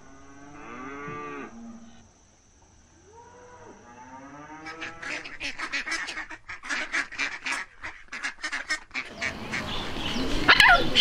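A cow moos twice, short and low, in the first few seconds. Then a greylag goose honks in a rapid series of about five honks a second for several seconds. Near the end a loud bird call cuts in.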